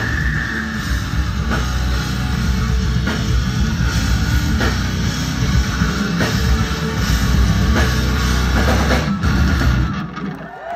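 A heavy rock band playing live through a PA: pounding drum kit, distorted electric guitars and bass. The band stops sharply near the end, at the close of the song.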